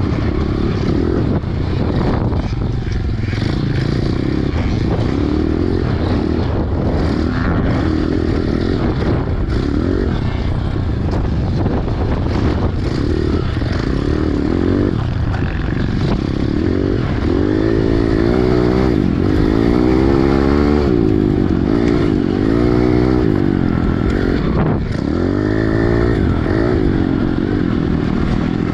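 Pit bike engine, heard close up from the onboard camera, revving up and down again and again as the bike is ridden hard around a muddy motocross track. The revving is most pronounced partway through.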